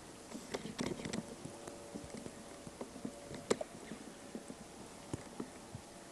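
Footsteps crunching in about five inches of fresh, falling snow: irregular soft crunches and knocks.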